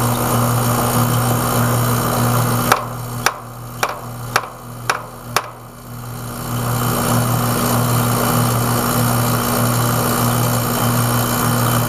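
Heil outdoor condensing unit running with a steady, loud hum while it pumps the refrigerant down into the condenser with the liquid service valve shut. About three seconds in the running noise dips, and six sharp clicks come roughly two a second before the steady running returns.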